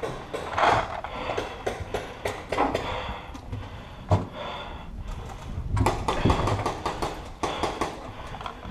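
Scattered knocks, clicks and scuffs as a paintball player's marker and gear bump and rub against the wooden walls of a small bunker, with a few louder scuffling bursts.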